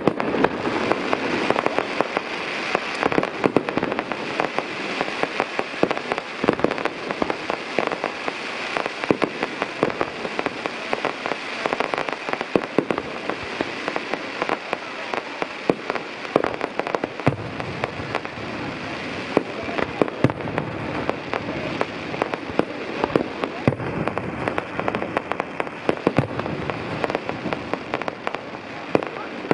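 Aerial fireworks display: a continuous stream of shell bursts and dense crackling, with many sharp bangs throughout and no let-up.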